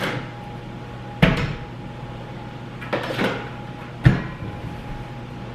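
Kitchen clatter: about four sharp knocks and bangs of cupboards and dishes being handled, the loudest around a second in and near the end, over a steady hum.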